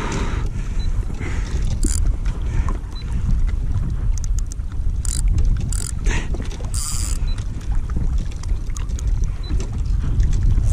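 Steady low rumble of water and wind against the microphone, with a few short hissing bursts.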